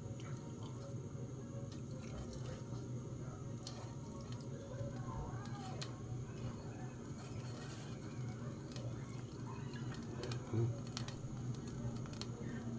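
Soy sauce poured in a steady trickle from a bottle onto pork and sliced onions in a stainless steel pot, over a steady low hum.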